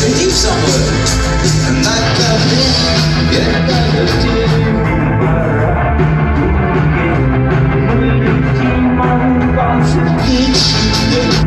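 Live rock band playing loud in a concert hall, heard from the audience: drums, guitars and bass. The cymbals drop back about four and a half seconds in and crash in again near the end.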